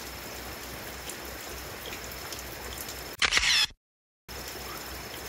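Steady hiss of rain, broken about three seconds in by a loud camera-shutter click sound, after which the sound cuts out completely for half a second before the rain hiss returns.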